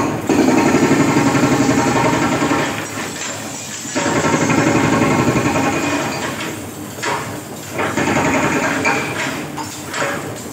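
Komatsu excavator's diesel engine working hard under hydraulic load as the machine pushes against a building. The engine comes and goes in three loud surges, about a second and a half apart.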